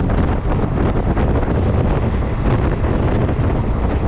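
Steady wind buffeting the microphone over the running noise of a moving passenger train.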